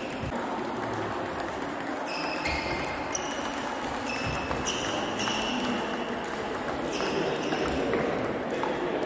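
Table tennis ball in a rally, bouncing on the table and off the bats: a run of short, clear pings about every half second, with a slight ring from the hall. The rally starts about two seconds in.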